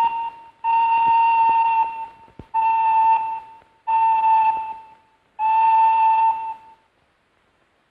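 Steam locomotive whistle blowing one steady note in short blasts: one dies away just after the start, then four more follow, each about a second long. A few faint clicks come between them.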